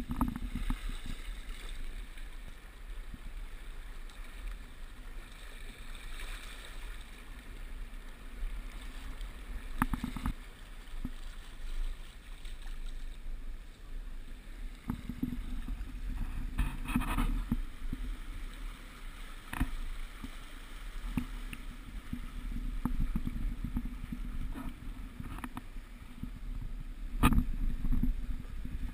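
Water rushing and splashing past the hull of an X-Yachts 442 sailing yacht running downwind, with a handful of sharp knocks, the loudest near the end.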